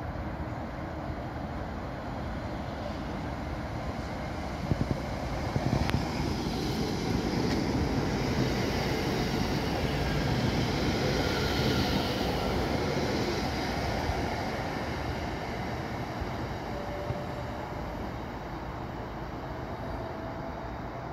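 Class 730 Aventra electric multiple unit running through the station without stopping: a rush of wheel and rail noise builds, is loudest about ten seconds in as the train passes, then fades away. A couple of sharp clicks come as it draws near.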